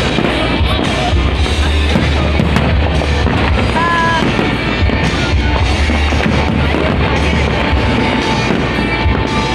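Fireworks display going off in a run of bangs, mixed with loud music playing.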